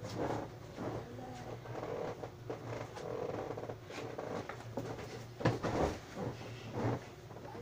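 Dull thuds and rustling of bedding as a person throws himself and lands on a pile of blankets and pillows on the floor, several knocks in all, the loudest about two thirds of the way in.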